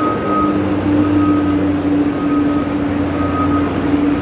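Steady engine hum with a vehicle's reversing alarm beeping about once a second.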